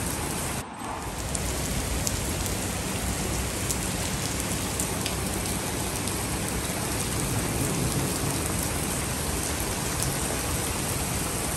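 Rain falling steadily, an even dense hiss of drops on wet pavement. The sound briefly drops out under a second in.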